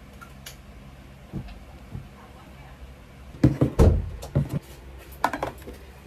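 Small bottles and other items being set down and moved on a desk: light knocks and clatters, a few faint ones early on, a loud cluster a little past halfway, then a few sharper taps near the end.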